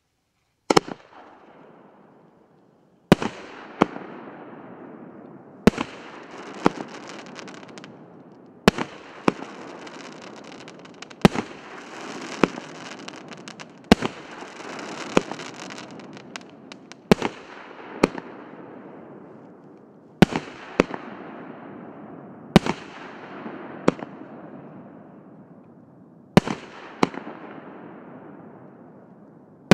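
A 36-shot 2-inch fireworks cake firing its shells one after another. The sharp bangs come in pairs about every two and a half to three seconds, with a steady hiss between them.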